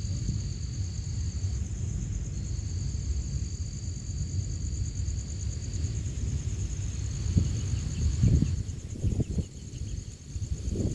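Crickets trilling steadily over a constant low rumble, with a second, higher insect call starting and stopping every few seconds. A few short low thumps come in the last few seconds.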